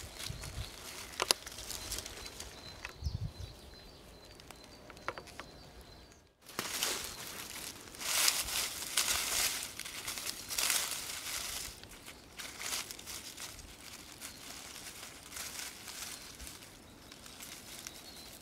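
Dry fallen leaves rustling and crackling as gloved hands brush through the leaf litter, in irregular bursts with a few sharp snaps. The rustling is quieter at first and loudest from about six to twelve seconds in.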